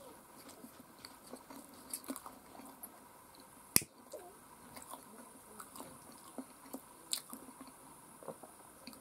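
Faint chewing and small mouth clicks, with one sharp click of a hand-held lighter being struck a little under four seconds in.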